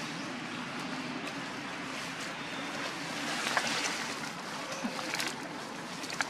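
Steady outdoor background hiss with a few brief rustles and clicks, the sharpest near the end.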